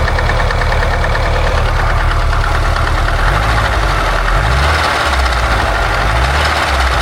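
Car engine idling with a hard, rapid knocking from the top end. The owner has found the timing chain tension normal and suspects the camshaft, or valves that have tightened and need adjusting.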